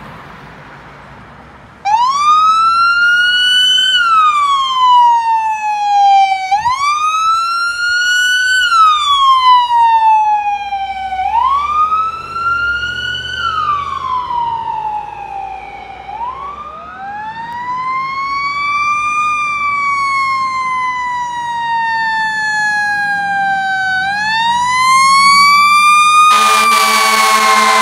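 Fire apparatus electronic siren wailing, rising and falling in pitch about every four to five seconds. About halfway through the wail slows into longer, drawn-out sweeps. Near the end a steady, blaring blast that sounds like a fire engine's air horn joins the wail.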